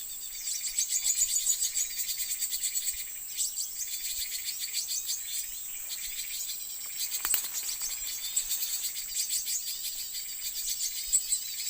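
Forest insects buzzing in a steady high drone, with rapid high chirps of small birds mixed in. There is a single sharp click about seven seconds in.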